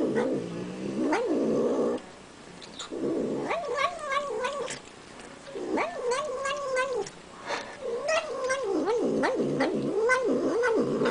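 Cat making drawn-out, wavering yowling moans while eating, in about four bouts with short breaks between, with small clicks from its chewing.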